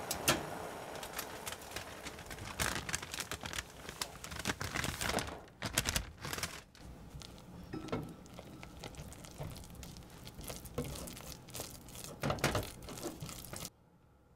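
Silicone spatula stirring and scraping in an enamel saucepan as flour is beaten into hot melted butter and liquid to make choux pastry dough: irregular scrapes, taps and clicks.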